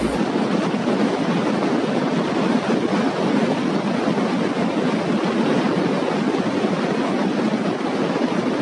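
Huge flock of starlings in a murmuration: a steady rushing whoosh of many wingbeats, with no distinct calls standing out.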